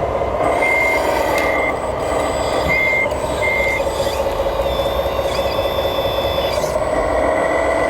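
Reversing beeper on an RC construction vehicle sounding four short high beeps in two pairs over its steady engine-and-drive drone, which dips and rises in pitch as the vehicle moves.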